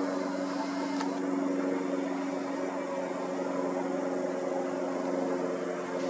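A steady engine-like drone holding one constant pitch, over a hiss.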